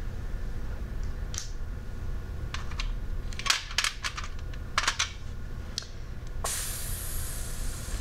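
Small objects clinking and rattling in a metal tin as a hand rummages through it: a string of sharp clicks, thickest in the middle. Near the end a steady hiss takes over for a second or two.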